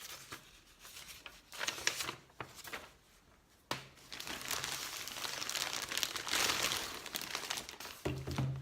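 Parcel packaging being handled and crumpled while a package is unpacked: irregular rustling and crinkling, growing denser and steadier from about four seconds in.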